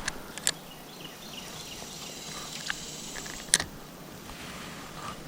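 Outdoor creek ambience with insects buzzing steadily, broken by a few sharp clicks, the loudest about three and a half seconds in.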